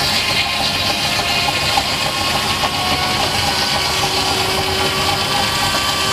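Large circular saw bench, belt-driven from a steam traction engine, cutting lengthwise through a log. The blade and drive run steadily, and a lower steady note comes in about four seconds in.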